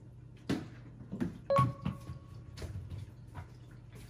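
A handful of light knocks and taps, irregularly spaced, over a steady low hum. The loudest knock, about a second and a half in, rings briefly with a clear tone.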